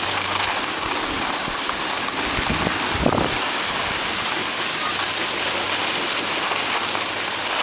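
Steady scraping hiss of a snowboard sliding over groomed snow, with a brief thump about three seconds in.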